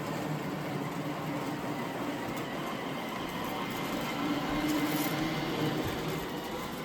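Two iRobot Roomba robot vacuums, an S9 and an i2, running together, a steady whirring hum of their suction motors and brushes as they clean up scattered plastic pellets.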